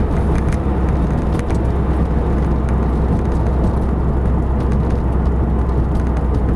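Car engine and exhaust with a low, steady drone while driving, heard from inside the cabin.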